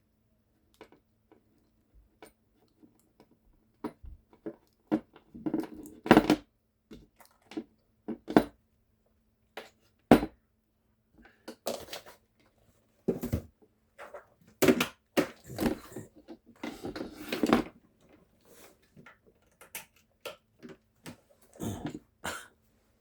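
Hands handling a newly unboxed hot air gun and its packaging: scattered clicks, knocks and rustles at irregular intervals, with quiet gaps between them.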